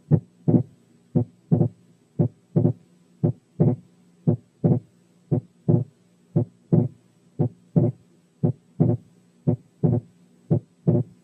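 Recorded human heart sounds heard at auscultation: a regular lub-dub at about one beat a second. The second heart sound is split in both inspiration and expiration, the split sometimes narrow and sometimes wide: persistent splitting, as heard in right bundle branch block.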